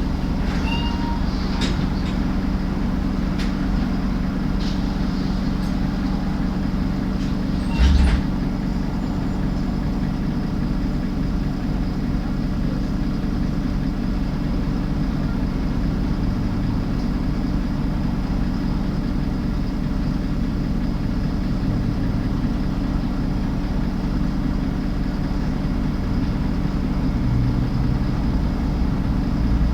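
Alexander Dennis Enviro 300 bus on a MAN chassis running steadily, with a few sharp clicks in the first few seconds and a burst of clicks with a low thump about eight seconds in.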